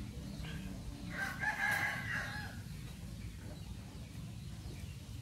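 A rooster crows once, starting about a second in and lasting about a second and a half, over a low steady rumble.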